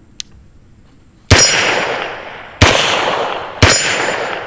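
Beretta M9 9mm pistol fired three times, roughly a second apart, each shot followed by a long ringing tail as steel targets ring. A short click comes just before the first shot.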